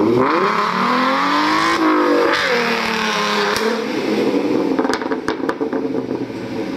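An engine revving: its pitch climbs over about two seconds, drops, then settles to a steady run, with a few sharp clicks about five seconds in.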